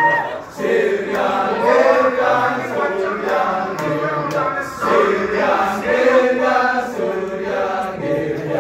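Balinese kecak chant: a chorus of men's voices chanting together in rhythm.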